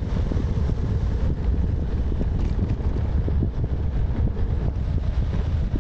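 Wind buffeting the microphone of a moving cyclist, a steady low rumble.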